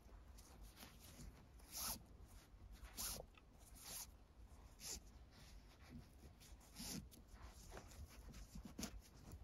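Faint, short swishes of nylon paracord being drawn through the loops of a woven collar, about six separate strokes.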